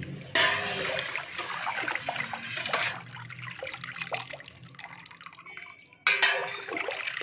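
Freshly made sugar-based cough syrup splashing as it is handled, in two sudden bursts: one shortly after the start that fades over a couple of seconds, and another near the end.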